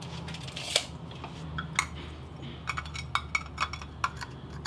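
Light clicks and clinks of a metal hole saw and a drain fitting being handled, with a sharp click about three quarters of a second in and a run of small clicks after. A steady low hum sits underneath.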